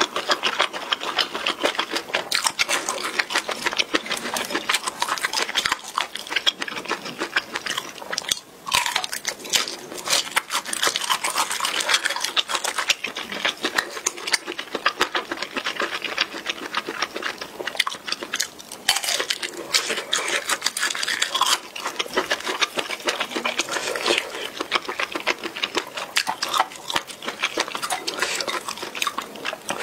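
Close-miked chewing of a mouthful of instant ramen noodles: a fast, continuous run of wet mouth clicks and smacks.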